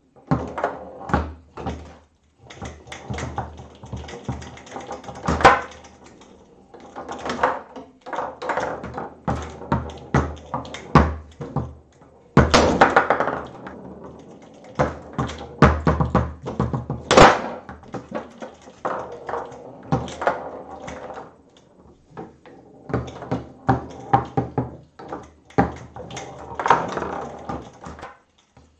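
Foosball table in play: the ball clacking against the plastic men, with the rods knocking and sliding, in runs of quick knocks broken by short pauses and a few louder knocks.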